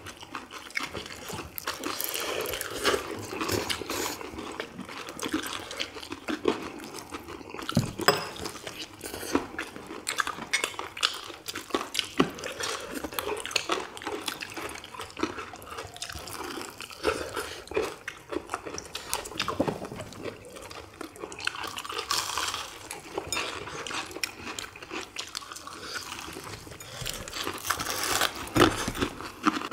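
People biting into and chewing crispy-crusted fried chicken drumsticks close to the microphone: an irregular, dense run of crunches and mouth noises, with many short sharp clicks.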